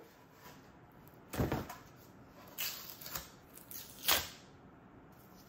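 A handful of short tearing and crackling noises, the last and loudest a little past four seconds in: cardboard being pulled off a freshly laid-up fiberglass panel it has stuck to.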